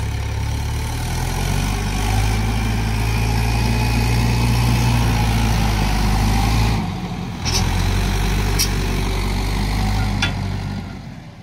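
Mahindra 475 DI XP Plus tractor's four-cylinder diesel engine running steadily while towing a threshing machine through soft ground. The engine note dips briefly about seven seconds in, a few sharp clicks follow, and the sound fades near the end.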